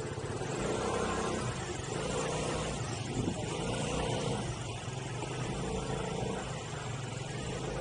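Motorbike engine running as it is ridden, its pitch rising and falling a few times.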